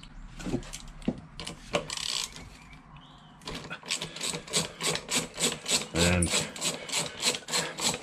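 Hand ratchet clicking as it undoes a brake caliper's 6 mm hex slide pin. There are a few separate clicks at first, then from about halfway a steady run of about four or five clicks a second as the pin is wound out.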